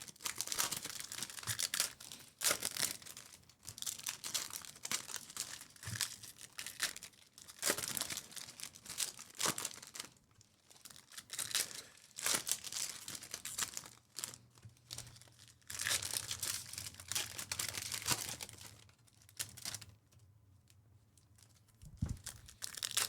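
Foil wrappers of 2024 Panini Donruss Baseball hobby packs being torn open and crinkled, with cards being handled, in irregular bursts and a short quieter gap near the end.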